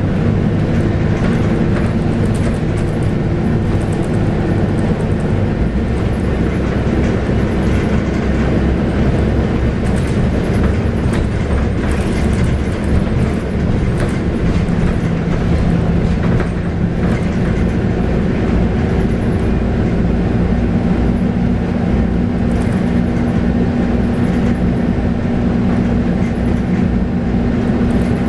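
Scania K280UB bus's 9.3-litre five-cylinder diesel running under way, heard from inside the cabin with steady road rumble and light rattles. The engine note shifts about six seconds in and again around twenty seconds in.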